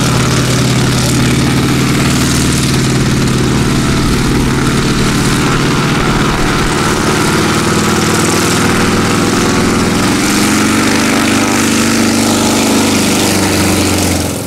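Yak-55's nine-cylinder M-14P radial engine and propeller running steadily at low power as the aircraft taxis. The engine note shifts slightly about ten seconds in.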